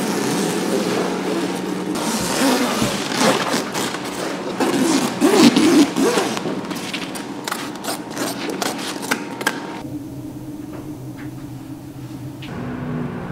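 Heavy coated tent fabric crackling and rustling as it is pulled and ripped apart by hand, with dense sharp crackles. The crackling dies down about ten seconds in, leaving a low steady hum.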